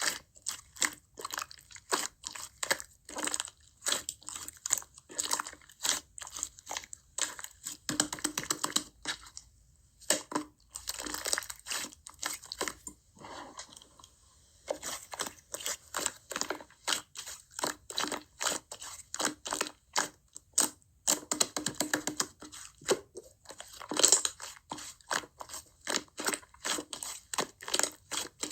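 Slime being squeezed and kneaded by hand, giving a dense, irregular run of crisp clicks and pops, with a couple of short pauses.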